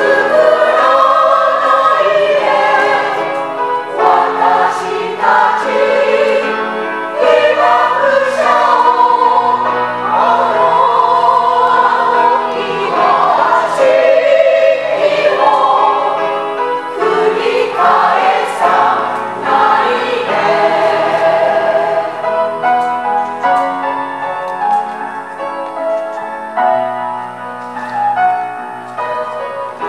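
A mixed choir of elderly men and women singing a song, several voice parts sounding together, a little softer in the last several seconds.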